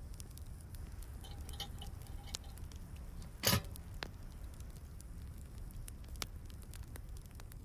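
A wood fire crackling inside a Colorado Cylinder Stove, with one short, loud metal clank about three and a half seconds in as the stove door's latch handle is worked to open it.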